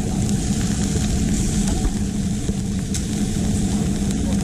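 An engine running steadily at a constant speed, a low drone with no change in pitch.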